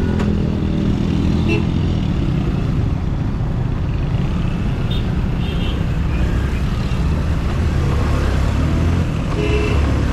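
Motorcycle engine running at low speed in slow city traffic, heard close from a helmet-mounted camera, with a few short high beeps from the surrounding traffic.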